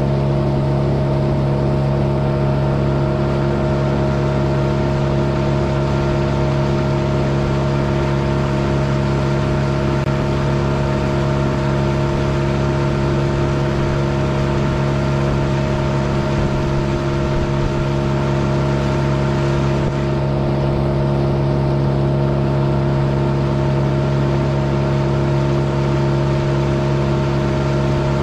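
A small river boat's outboard motor running steadily at cruising speed, a constant droning hum with water and wind noise beneath it.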